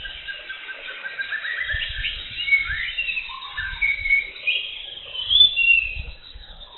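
Several birds calling with short whistled notes that rise and fall and overlap, loudest about two and a half and five and a half seconds in, over a few short low thuds.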